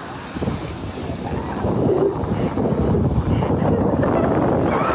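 Wind buffeting the microphone over the rush of surf breaking on a beach, growing louder over the first couple of seconds.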